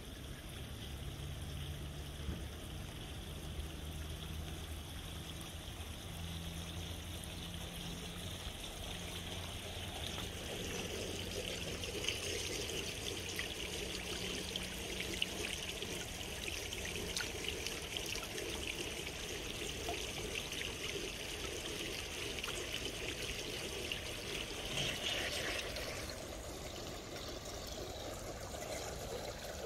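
Water running and trickling down the steps of a tiered cascade fountain, a steady splashing hiss that grows louder in the middle and then eases off near the end. A low steady hum sits underneath for the first half.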